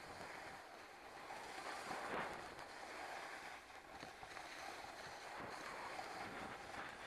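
Snowboard sliding over snow: a steady scraping hiss that swells about two seconds in.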